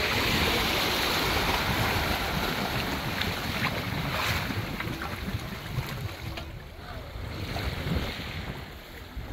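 Wind buffeting the microphone over the wash of sea surf; the wind eases after about six and a half seconds.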